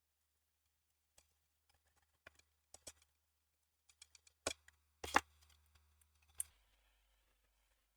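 Scattered small clicks and taps of tools and parts being handled on a workbench. The sharpest knocks come about four and a half and five seconds in, and another comes near six and a half seconds.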